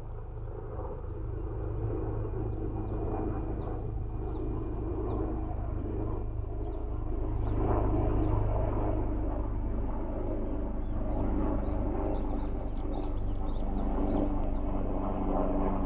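Outdoor ambience: a steady low rumble with faint, short, high-pitched chirps repeating through it. It grows a little louder about halfway through.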